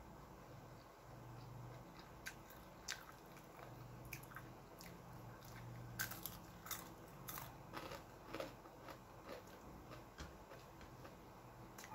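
A person chewing and crunching crispy fried fish, eaten by hand: a scatter of short crisp crunches, thickest around the middle.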